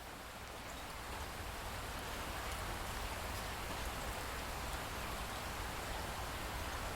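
Light rain falling steadily, with scattered drips, fading in over the first couple of seconds.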